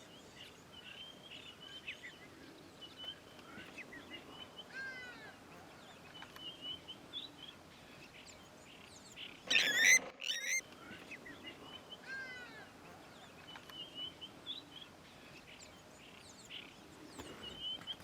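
Wild birds calling at a waterside: many short high chirps, a few series of falling whistled notes, and one louder sharp burst of sound about ten seconds in.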